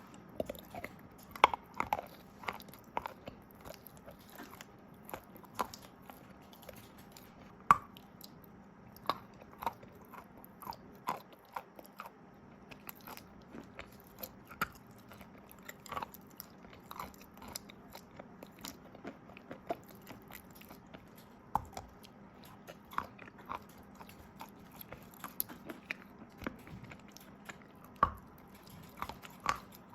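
Close-miked crunching of wet chalk with paste being bitten and chewed: irregular sharp crunches and clicks, a few louder bites standing out, over a quiet background.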